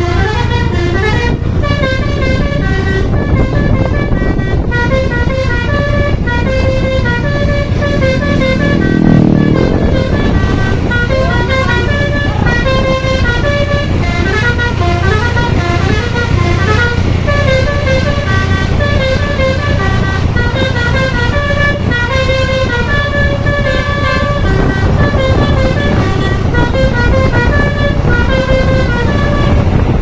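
Bus telolet Basuri multi-trumpet air horn playing a continuous tune of quick, stepping notes over the low, steady running of the bus's diesel engine. A louder low sound swells briefly about nine seconds in.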